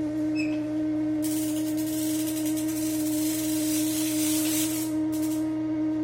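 Electrolux Net&Clean 13 kg washing machine in its spin cycle, giving a steady humming tone, with a hiss that comes in about a second in and stops near the end. This is the abnormal spin-cycle noise that the owner wants to get rid of.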